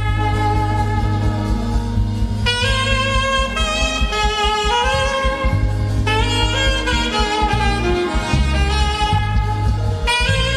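Instrumental praise music with no singing: a held, sliding lead melody over a steady bass line.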